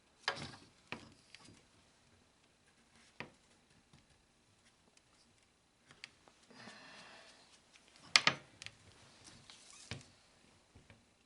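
Handling noises from a laser engraver's frame being moved and stood on end: scattered knocks and clicks, a stretch of rustling just past the middle, then one sharp knock.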